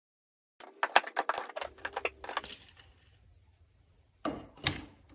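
Bessey one-hand edge clamp being handled: a quick run of clicks and knocks for about two seconds, then two sharper clicks near the end.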